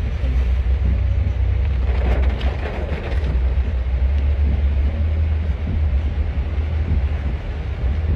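Steady low rumble of a vehicle moving along a flooded street, heard from on board, with a haze of water and road noise over it.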